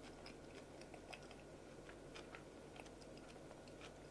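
Near silence: a low steady hum with faint scattered clicks of a utensil stirring in a bowl.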